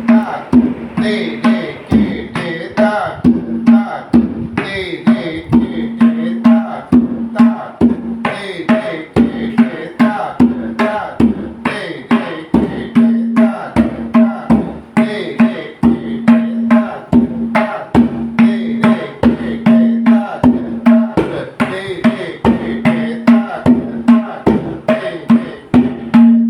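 Tabla played in a steady rhythm, about two sharp strokes a second with lighter strokes between, the right-hand drum's tuned ring sounding again and again.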